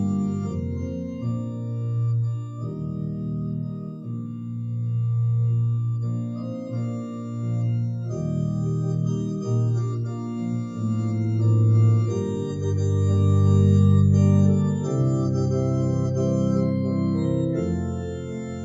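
Organ playing slow, sustained chords over a deep bass line, growing louder about two-thirds of the way through.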